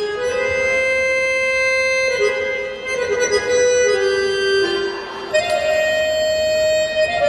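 Accordion playing a slow melody in long held notes, each sustained for a second or two, stepping up to a higher held note about five seconds in.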